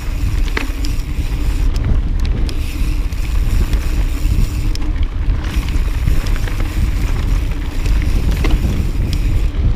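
Wind buffeting the microphone on a moving mountain bike, a heavy low rumble, with a few sharp knocks and rattles from the bike on the trail.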